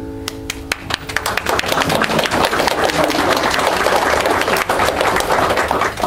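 The last acoustic guitar chord rings out and dies away as a small crowd starts clapping; the applause builds within a second or two, holds, and falls off near the end.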